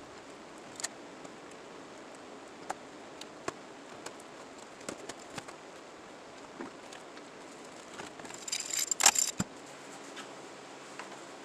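Metallic handling noise from a CO2 replica revolver and its brass shells: scattered light clicks, then a burst of metal clinking and jingling about eight to nine and a half seconds in.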